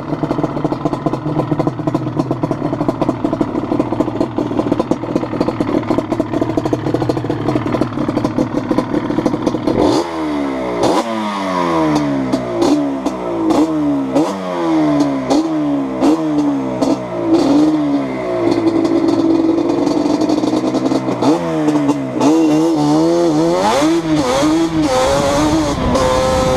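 Yamaha Banshee's twin-cylinder two-stroke engine through replica Toomey T5 drag pipes, running steadily at low speed for about ten seconds. Then it is revved in a quick series of rising surges that each drop back, holds a steady note for a few seconds, and near the end climbs in pitch as the quad accelerates.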